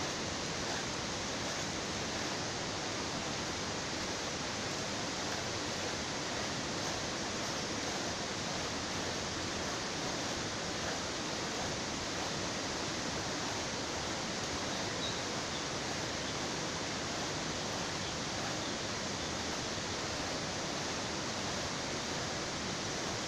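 Steady, even rushing noise with no distinct strokes, knocks or cuts.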